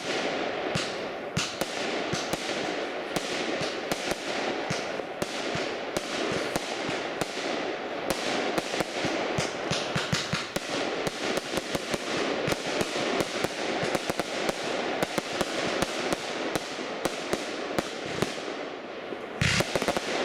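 Professional aerial fireworks display: a rapid, unbroken run of pops and bangs from shells launching and bursting. A louder, deeper bang comes near the end.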